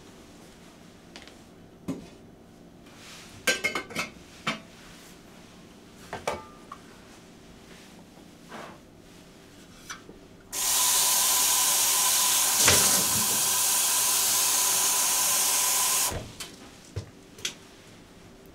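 Kitchen tap turned on, water running steadily into the sink for about five seconds, then shut off. Before it come a few light clinks and knocks of dishes and utensils.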